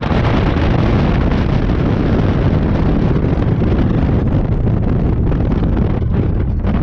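Heavy wind buffeting an action-camera microphone: a loud, steady, rumbling roar with no break.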